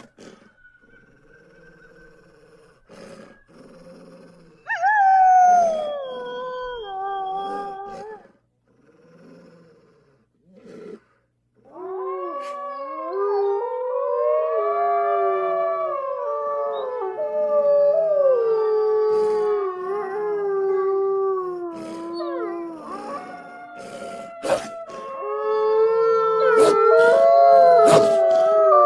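Wolves howling: one howl falling in pitch about five seconds in, then from about twelve seconds a long chorus of several overlapping howls that waver in pitch, with sharp clicks near the end.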